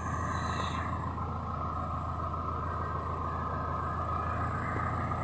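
An engine running steadily: a low drone with a constant whine above it, no change in speed.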